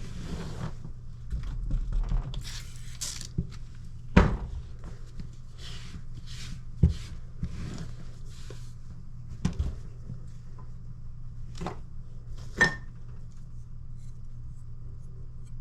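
Steel kitchen knife being stroked across a sharpening stone: a series of short scraping strokes, broken by a few sharp knocks.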